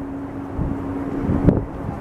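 Wind buffeting the camera's microphone, with low thumps about half a second and a second and a half in, over a steady low hum.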